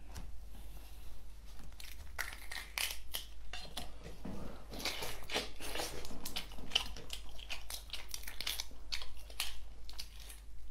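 Shell of a large boiled prawn being cracked and peeled apart by hand: an irregular run of crackling, tearing clicks.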